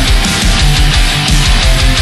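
Loud heavy metal background music: electric guitar over a fast, driving low drum beat.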